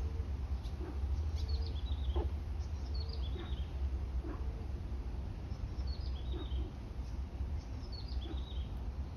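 A bird repeating a short chirping phrase of a few quick falling notes several times, over a steady low rumble.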